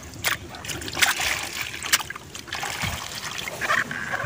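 Water splashing and trickling as a perforated plastic basket holding gourami fry is moved through water and tipped into a tub, with sharp splashes about a third of a second, one second and two seconds in.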